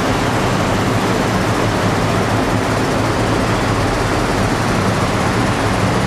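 Truck engines running slowly, a steady low engine drone with dense noise over it.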